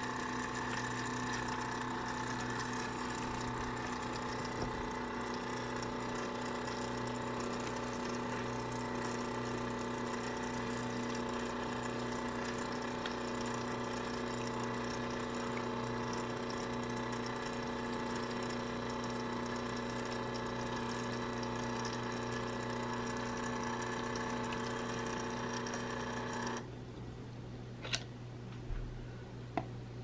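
Toy play sink's small electric water pump running steadily with a hum, water trickling from the plastic faucet. It cuts off suddenly near the end, followed by a few light knocks.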